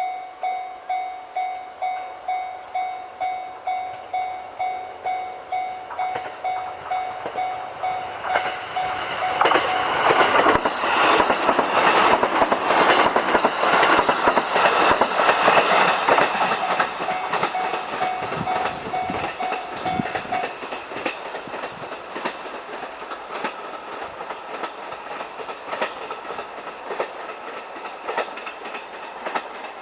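Japanese level-crossing warning bell ringing steadily about twice a second while a train crosses, its wheels clattering loudly over the rail joints from about nine seconds in. The bell stops about twenty seconds in, and the train's rumble and clicking fade away over the last ten seconds.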